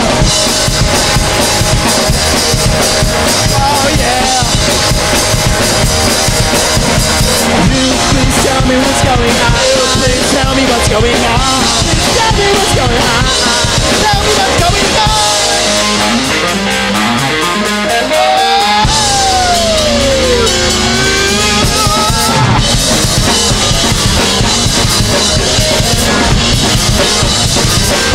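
Punk rock band playing live, an instrumental stretch driven by a full drum kit. About halfway through, the lowest notes drop out for a few seconds while gliding, bending notes sound above, before the full band comes back in.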